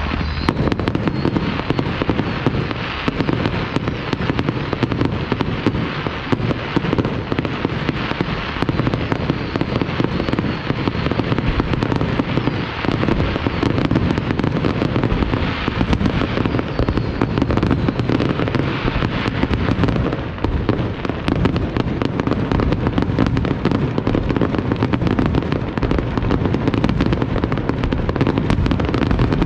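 Fireworks display: a dense, unbroken barrage of shell bursts and crackling with no pause between them.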